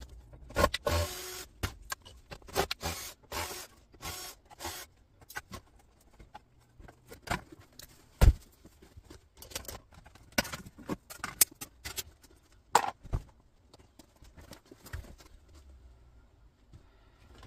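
Computer monitor stands being taken off and handled: scattered plastic and metal clicks, rattles and scrapes, with one sharp knock about eight seconds in.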